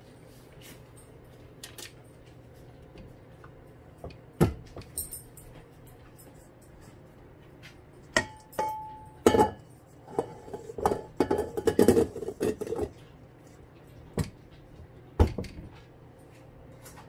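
Stainless steel bowl and beater of a KitchenAid K45SS stand mixer clinking and clanking as they are handled: one knock about four seconds in, then a cluster of metal clanks from about eight to thirteen seconds, the bowl ringing briefly on the first, and two more knocks near the end.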